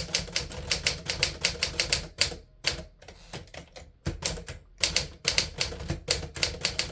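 1950s Smith Corona Silent Super manual typewriter being typed on: a quick run of key strikes, about five or six a second, with a short pause a little before the middle.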